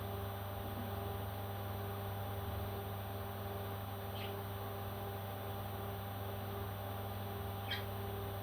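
Two brief high squeaks from a baby parrot, about four seconds in and again near the end, over a steady hum.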